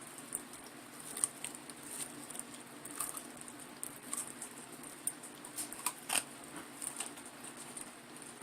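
Faint, irregular small crackles and clicks of someone eating crispy air-fried chicken.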